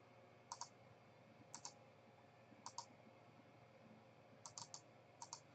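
Faint computer mouse clicks, mostly in quick pairs, five or six small groups spread about a second apart.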